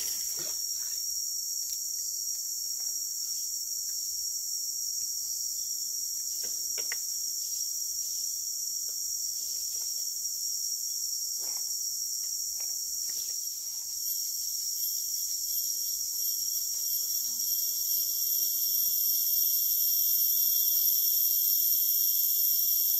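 Steady, high-pitched chorus of forest insects. A second, higher-pitched insect drone comes in about two-thirds of the way through and grows louder, over a few faint clicks.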